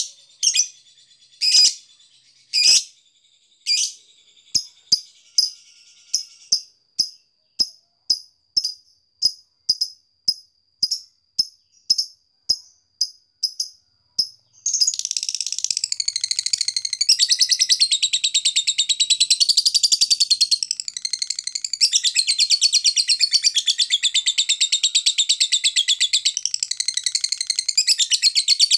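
Fischer's lovebird calling: sharp, evenly spaced high chirps about twice a second, then about halfway through it breaks into a long, unbroken, rapid chattering trill, the long 'ngekek' song that lovebird keepers prize.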